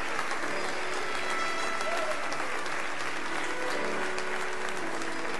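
Congregation applauding steadily, with soft sustained musical tones underneath.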